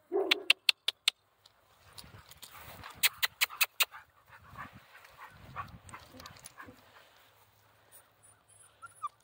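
Central Asian shepherd puppy giving a short whimper near the start and a thin falling whine near the end. Between them come sharp clicks and crunches of paws on gravel and slate chips.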